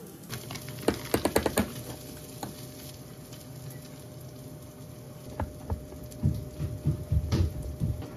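Kitchen knife slicing through a chikuwa fish cake onto a wooden cutting board: a quick run of about six taps about a second in. Later, chopsticks stir flour batter in a small ceramic bowl, with light clicks and soft knocks.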